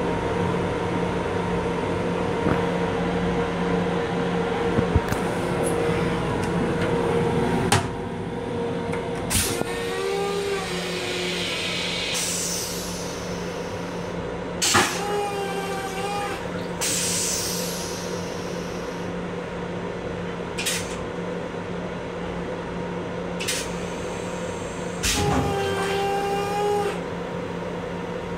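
Inside the restroom of a Long Island Rail Road M7 electric railcar: the car's steady hum and rushing noise, with a few sharp clicks, short hisses, and three brief pitched whines.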